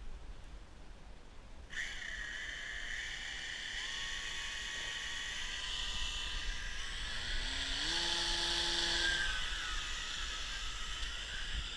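Small electric propeller motors whining at high speed. They start abruptly about two seconds in and hold steady, with several pitches shifting and gliding as the throttle changes.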